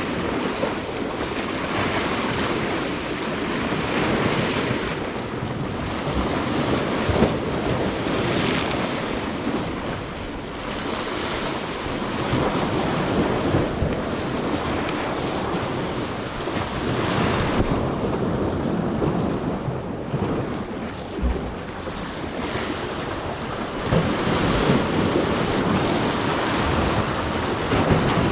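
Ocean surf washing and breaking against jetty rocks, with wind buffeting the microphone. The wash swells several times and is loudest near the end.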